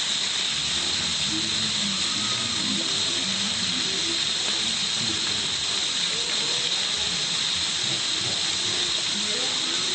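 Waterfall rushing steadily, with faint voices of people underneath.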